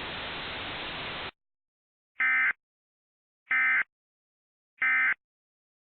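Emergency Alert System SAME End-of-Message data burst, the warbling digital tones sent three times, about 1.3 s apart. It signals that the alert is over. Before it, a steady hiss cuts off about a second in.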